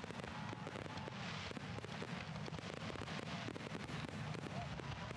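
Aerial fireworks bursting many at a time: a dense run of rapid pops and crackling that keeps up without a break, with no single loud bang standing out.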